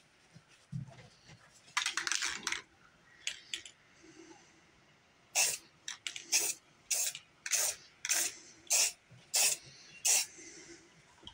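Aerosol spray paint can hissing in short bursts. There is one longer spray about two seconds in, then a quick run of about nine short puffs, nearly two a second, in the second half. It is laying yellow paint along the edge of a paper mask.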